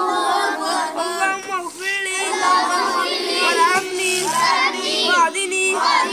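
Many young boys' voices reciting Arabic prayer words aloud together in a sing-song chant, the voices overlapping and not quite in unison.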